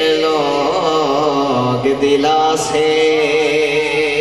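A man singing a Punjabi naat into a handheld microphone, in a slow, ornamented melody. The line ends on a long held note through the second half.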